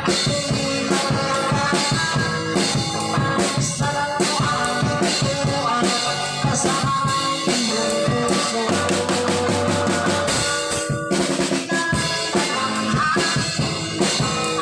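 Live band music driven by a drum kit played hard by a young girl: rapid tom, bass drum and snare hits with cymbals, over electric guitar.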